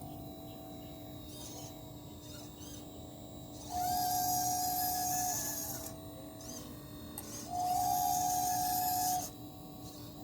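Small electric motors of a 1/12-scale RC excavator whining steadily. The whine twice rises in pitch and gets much louder, for about a second and a half each time, as the machine's functions are worked.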